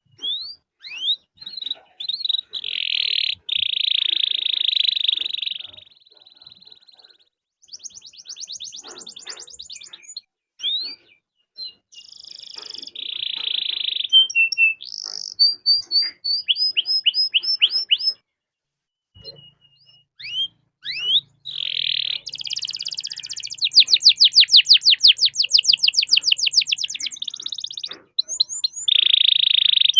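Domestic canary singing a long, varied song of fast trills and rolls, rapid runs of repeated notes and rising whistled sweeps, broken by short pauses between phrases.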